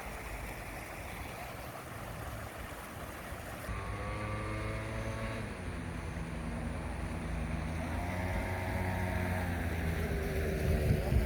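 Steady rush of fountain water. About four seconds in, a low engine drone comes in and swells in long waves, growing louder toward the end.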